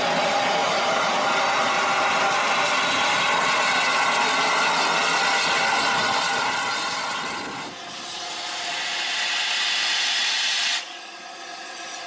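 Steady steam hiss from SE&CR H class 0-4-4T tank engine No. 263. It dips briefly about two-thirds of the way in, then builds again. Near the end it drops suddenly to a quieter hiss.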